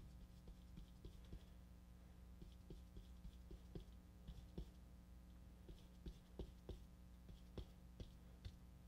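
Faint scratchy strokes and soft irregular taps of a bristle brush scrubbing thin dark oil paint onto a canvas, over a low steady hum.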